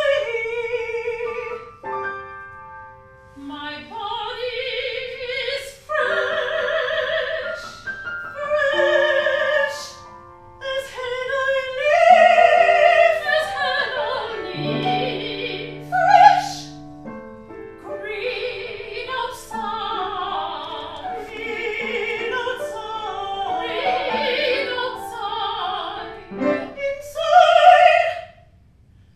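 A woman singing opera in a trained voice with wide vibrato, in phrases broken by short pauses, accompanied by piano with sustained chords.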